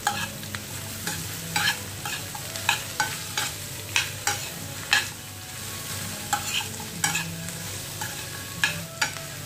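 Metal spoon scraping and clacking against a frying pan as sliced snake gourd and onion are stirred, in irregular strokes about once or twice a second, over a steady sizzle of frying.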